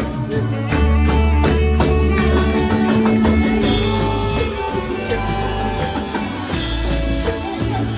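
Music with guitar, bass and drums playing a steady beat.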